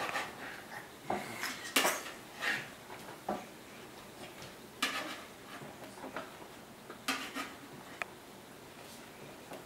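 Butter knife knocking and scraping on a cutting board while bananas are sliced, in irregular short knocks about once a second.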